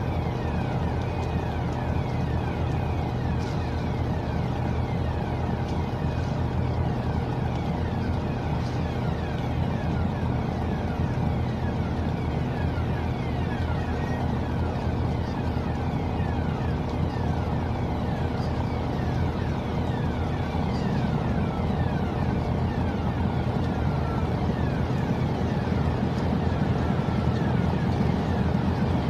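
Steady low engine rumble, growing a little louder about two-thirds of the way through.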